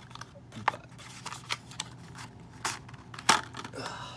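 Small thin-card toy box being pried open by hand: irregular crackles and snaps as the flaps bend and tear, the loudest about three seconds in.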